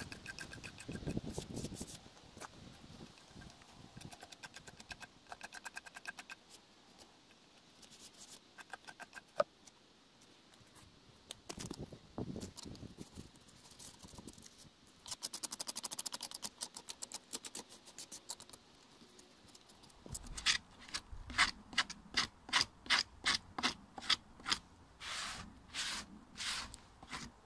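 Steel blade scraping and cutting into a rotten pine log in short runs of quick strokes. Near the end this settles into a steady series of sharp strokes, about two a second.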